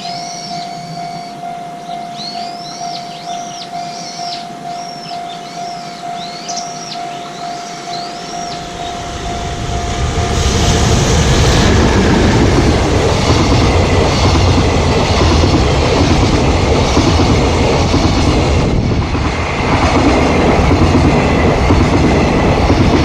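Level-crossing warning bell ringing in a steady pulse while birds chirp. From about nine seconds in, a freight train of an EF210 electric locomotive and flat wagons loaded with rails rolls through the crossing, its wheels rumbling and clacking loudly and drowning out the bell.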